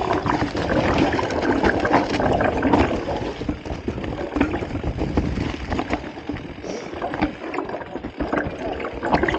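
Mountain bike tyres rolling fast over a trail of dry fallen leaves: a continuous crackling rustle dotted with many small clicks and knocks.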